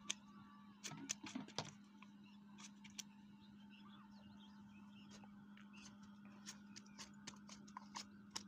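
Near silence: a faint steady low hum with scattered small clicks and ticks.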